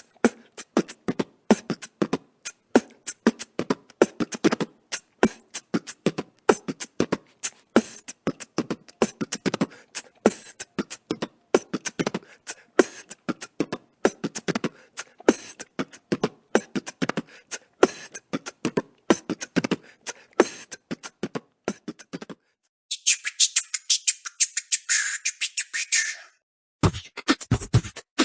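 Beatboxing: fast mouth-made kick, snare and hi-hat sounds in a steady rhythm. About 23 seconds in, the beat stops briefly for about three seconds of high hissing, scratch-like sound, then the beat comes back with deep kicks.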